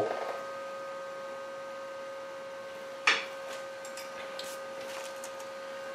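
Steady workshop hum carrying a few steady tones, with one short scrape about three seconds in and a few fainter ones after it.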